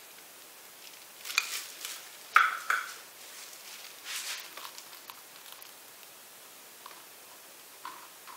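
Handling noises from a plastic glove and a paint cup: scattered crinkles, rustles and small clicks, with the sharpest knock, briefly ringing, about two and a half seconds in.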